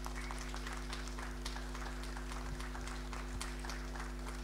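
Audience applauding: many hands clapping in a dense, even patter, over a steady low hum.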